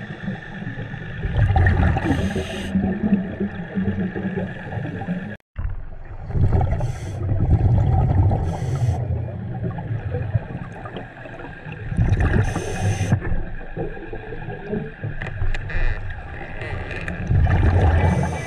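Scuba diver breathing underwater through a regulator: a bubbling rumble of exhaled breath with regulator hiss, repeating every four to five seconds, with a brief cut-out about five seconds in.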